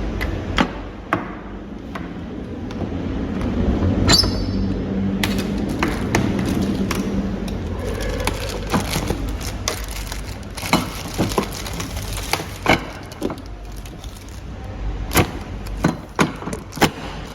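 Clicks and knocks of metal parts on a commercial dehumidifier being handled, as the handrail stopper is taken out and the handrail is folded down. There is a brief metallic ring about four seconds in, over a low steady hum.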